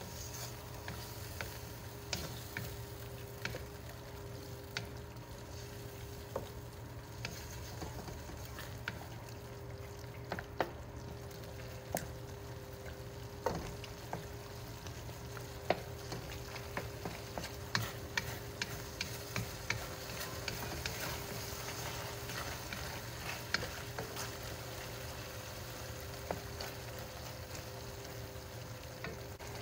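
Beef slices sizzling and bubbling in a soy and oyster sauce in a nonstick pan, stirred with a wooden spatula that knocks and scrapes against the pan at irregular moments. A faint steady hum runs underneath.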